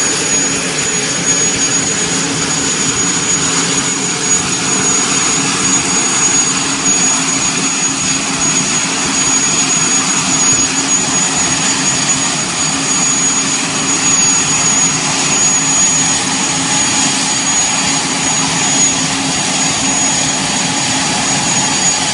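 Aérospatiale SA341 Gazelle helicopter's Turbomeca Astazou turboshaft running steadily on the ground, a loud, even engine noise with a steady high-pitched turbine whine.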